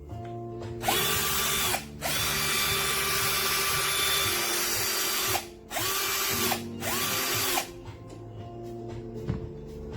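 BLACK+DECKER cordless drill motor run in four bursts: a short spin, a long spin of about three seconds, then two quick spins. Each run whines up to speed and winds down when the trigger is released.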